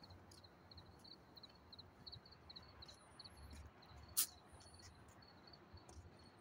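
Faint chirping of a cricket, short high chirps repeating about three times a second over a low background rumble, with one sharp click about four seconds in.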